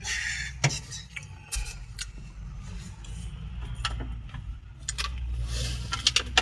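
Metal clinking and clattering from repair work on a truck, with scattered sharp clicks and two short hisses, one at the start and one near the end, over a low steady rumble.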